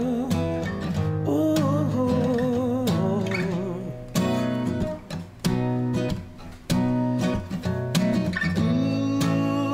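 Acoustic guitar played with the fingers as a song's intro, with a few sharp, loud strummed accents in the middle.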